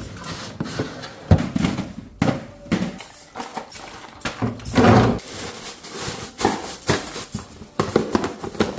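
Irregular knocks, taps and clatter of plastic containers and vegetables being handled and put away, with a heavier knock about a second in and another around five seconds in.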